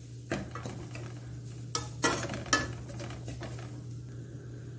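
Steel slotted spoon stirring grated coconut as it roasts in an aluminium kadai, scraping metal on metal in a few sharp strokes over the first three seconds or so. The coconut is being roasted until fragrant for chutney.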